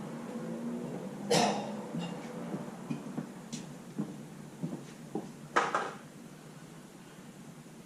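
Scattered knocks and light metallic clinks of hands and tools moving around the car's engine bay, with the loudest clank about a second and a half in and another sharp one just before six seconds.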